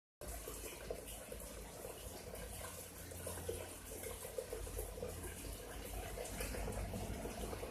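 Water trickling and splashing steadily in a paludarium's water feature, with many small gurgling blips.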